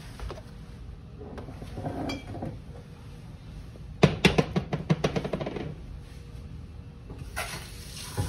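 Kitchen clatter as kitchenware is handled and set down: some faint handling noise, then a quick run of sharp knocks and clinks about four seconds in, the loudest part.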